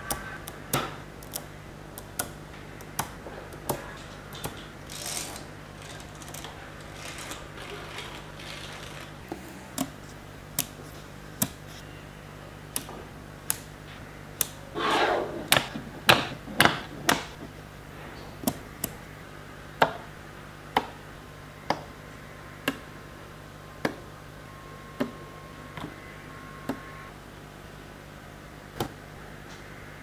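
Small magnetic metal balls clicking sharply as strips of magnet balls are snapped onto the build, about one click a second, with a longer rattling scrape of balls about halfway through.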